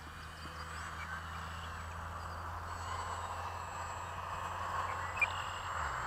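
Distant buzz of a small electric RC biplane's motor and propeller (E-flite UMX Pitts with a GWS 5043 prop) in flight, growing gradually louder. A brief high chirp comes about five seconds in.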